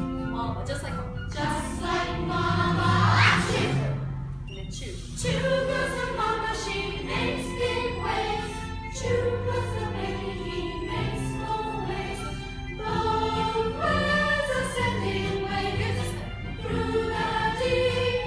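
A group of voices singing a song together over steady low instrumental accompaniment, with a loud sliding rise in pitch about three seconds in.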